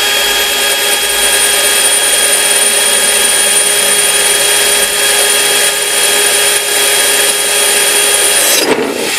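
Drill running steadily at speed with a Unika arrowhead-tipped tile bit, grinding its way into an ordinary ceramic tile: an even whine with grinding. It cuts off near the end, and the tile proves easy to drill.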